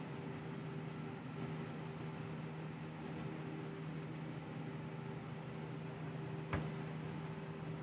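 A steady low hum over faint hiss, with one short click about six and a half seconds in.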